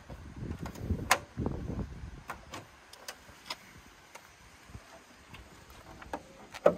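A Honda Civic's bonnet being unlatched and lifted open: rattling and handling noise with a sharp knock a little after a second in, then a few light clicks. A second sharp knock comes near the end.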